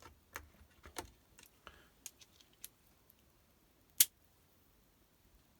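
Steel driver bits and socket adapters being handled and fitted together: a run of light metallic clicks and taps, then one sharp click about four seconds in.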